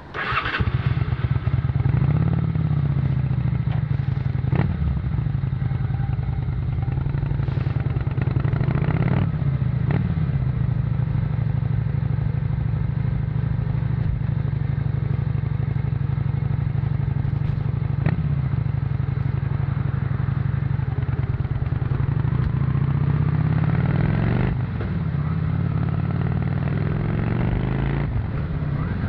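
Honda VT600C Shadow V-twin engine on its stock exhaust, running from a sudden start right at the beginning. Its pitch rises and falls several times as the engine speed changes.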